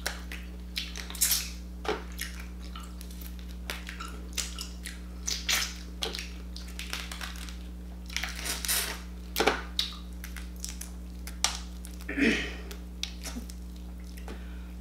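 Boiled crawfish being peeled and eaten close to the microphone: shells cracking and snapping apart, with wet sucking, smacking and chewing in an irregular string of short crackles.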